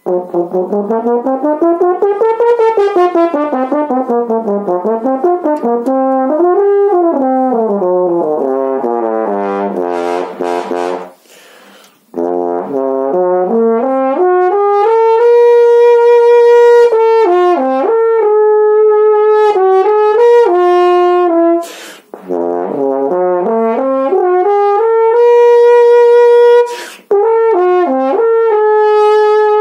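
Roy Benson double French horn played solo: quick runs up and down the range at first, then phrases with long held notes, broken by short pauses for breath.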